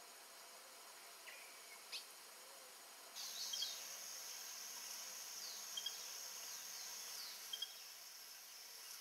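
Faint riverside forest ambience. About three seconds in, a steady high insect chorus starts abruptly, and bird calls sound over it: several short falling whistles and a few paired chirps. Before that there are only a couple of faint bird chirps.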